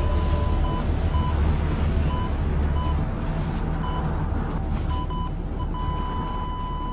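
Ambulance patient monitor beeping quickly with a racing heart rate over the low rumble of the moving ambulance; near the end the beeps run together into one continuous tone.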